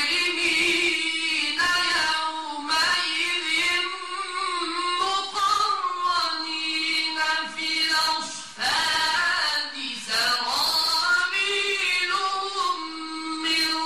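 A man's voice in mujawwad Quran recitation: long, high held notes with melismatic ornaments, sung in tajwid style, with a short break for breath about eight seconds in.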